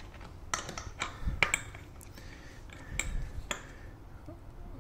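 Short plastic clicks and knocks as a plastic rear mudguard is pushed and fitted against the e-bike frame's mounting bracket. There is a cluster of clicks early on and a couple more about three seconds in.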